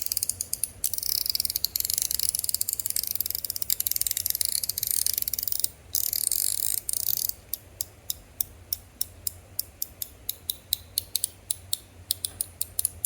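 Stainless steel Showhand metal fidget toy clicking as it is worked in the hand. It first gives a dense, rapid stream of high-pitched clicks. About seven seconds in, this gives way to separate sharp clicks at about three or four a second.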